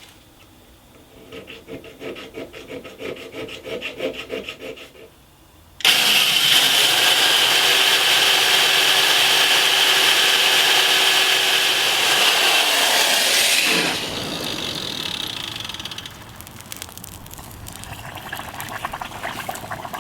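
Repeated rasping strokes of a file or abrasive drawn across a steel knife blade, then a loud steady hissing rush that cuts in suddenly about six seconds in and drops away about eight seconds later.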